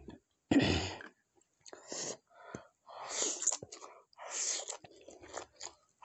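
Close-miked eating: chewing with bites and crunches, heard as a series of short separate bursts of mouth sounds, the loudest about half a second in.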